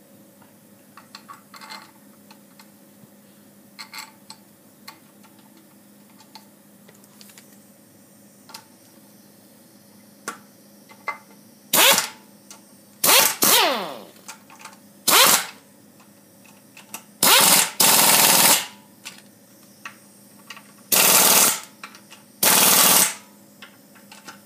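Air-powered wrench running the gearbox case's 12 mm bolts in, in about eight short loud bursts over the second half, some winding down in pitch as they stop. Before that there are only light clicks and taps as the bolts are threaded in by hand.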